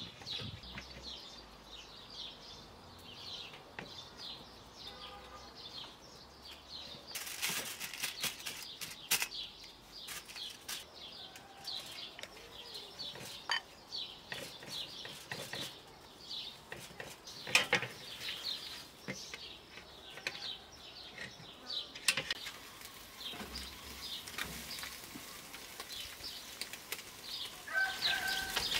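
Small birds chirping over and over, with scattered sharp clinks and taps of a wire grill basket against a metal tray as fish fillets are laid into it.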